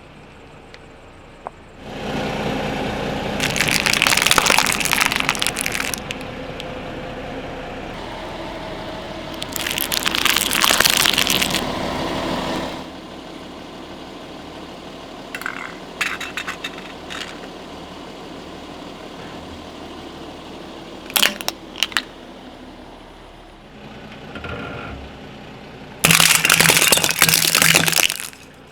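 A car's tyres rolling over and crushing brittle objects: loud crackling and crunching, in several bouts over a low engine and tyre rumble, with a few single sharp cracks between them.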